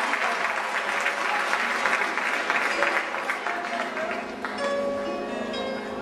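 Audience applauding. The clapping thins out about four seconds in as music with held notes comes back in.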